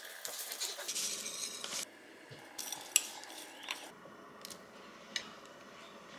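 Cutlery and dishes clinking and scraping: a busy clatter for about two seconds, then scattered sharp clicks, the loudest about three seconds in.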